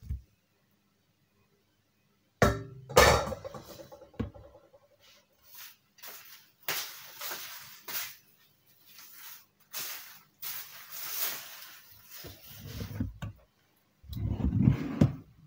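Dish and kitchen handling sounds: two sharp clinks, the second with a brief ring, then irregular bursts of rustling and scraping, with low handling bumps near the end.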